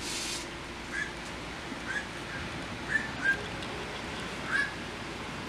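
Short high chirps, about one a second, over a steady low background, with a brief rush of hiss at the very start.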